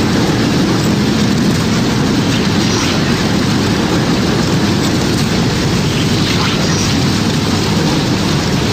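Storm wind and sea noise: a steady, loud rushing roar with a heavy low rumble.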